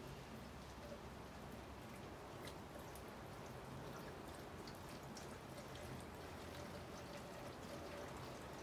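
Gasoline pouring in a thin, steady stream from a plastic gas can into a container, faint, with scattered small splashes, while measuring fuel for a 25:1 two-stroke mix.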